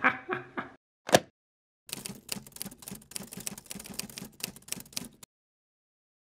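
Typewriter keys clacking in rapid, uneven strokes for about three seconds, then stopping abruptly, as a typing sound effect. A single short, sharp, louder sound comes about a second in, just before the typing starts.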